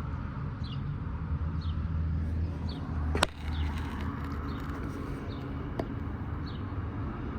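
Outdoor ambience: a steady low rumble of traffic. Over it, a short high falling chirp repeats about once a second. A sharp click comes about three seconds in and a fainter one near six seconds.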